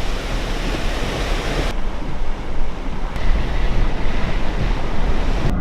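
Hurricane wind and rain rushing over the microphone as a loud, steady noise that changes abruptly twice.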